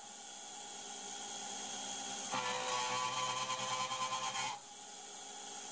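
MaxNC CNC mini-mill cutting quarter-inch mild steel plate with a 3/8-inch four-flute carbide endmill spinning at about 8,000 rpm. The spindle and cut make a steady high-pitched whine. Its tone shifts abruptly a little over two seconds in and shifts back about two seconds later.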